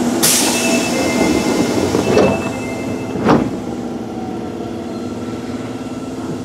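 Osaka Municipal Subway 20 series train, with a Hitachi IGBT-VVVF inverter, slowing to a stop at a platform: steady motor tones over running noise. A sudden hiss fades away just after the start, and two sharp knocks come about two and three seconds in.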